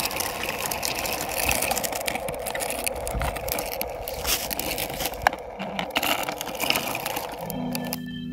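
Plastic toy dump truck pushed by hand over gritty dirt: its plastic wheels roll with a rattling, crunching noise and scattered sharp clicks. Music comes back in near the end.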